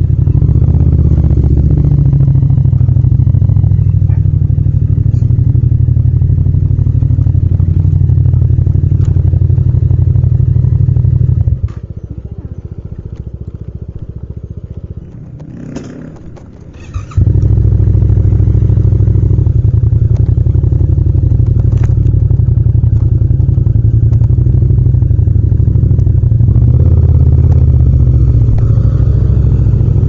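Yamaha MT-07's parallel-twin engine running under way. About twelve seconds in it falls much quieter for about five seconds, with a couple of sharp clicks near the end of the lull, then comes back just as loud as the bike pulls away again.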